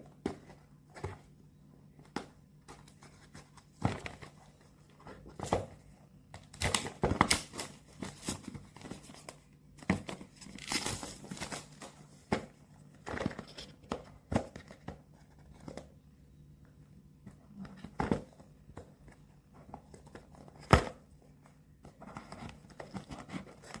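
Product packaging being handled and opened: irregular crinkling and tearing of plastic and paper, with sharp clicks scattered throughout.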